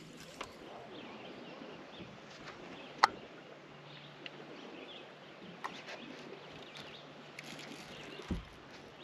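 Scattered light clicks and knocks from fishing gear being handled on a boat, with one sharp click about three seconds in and a dull thump near the end.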